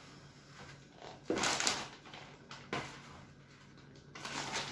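Short scrapes and rustles of a scoop working a wet particle bait mix between a plastic bowl and a plastic bag, loudest about a second and a half in, with shorter ones near three seconds and near the end.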